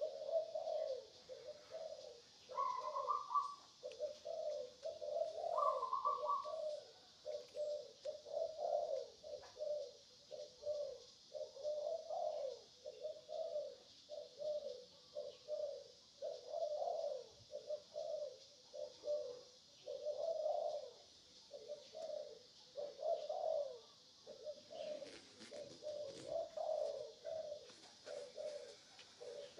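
Birds calling: short low notes in quick succession, over and over, with two higher notes a few seconds in. A steady high hiss runs underneath.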